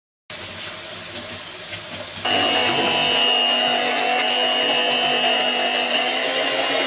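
Electric stand mixer running, its twin beaters whisking batter in a bowl: a steady motor hum that gets louder about two seconds in, with a steady high whine added.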